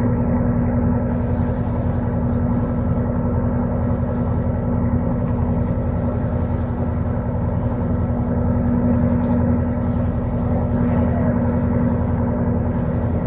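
Boat engine running steadily, a constant low drone.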